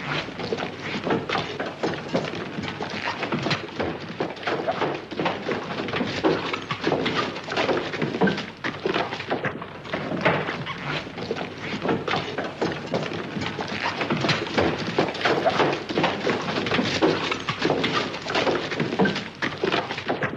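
A horse walking about in a barn, its hooves knocking and scuffing on the floor in a dense, uneven run of steps, with its heavy breathing.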